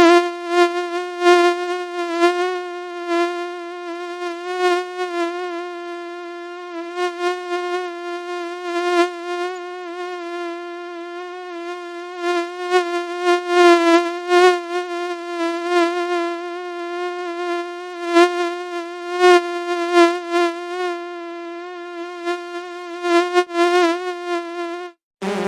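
Mosquito-like whine: one steady buzzing pitch with many overtones, wavering slightly and swelling and fading in loudness, cutting off suddenly near the end.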